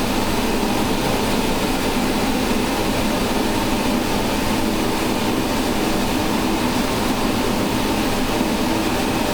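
Large multi-jet glassblowing hand torch burning on the piece, a loud steady rushing noise with no change in level.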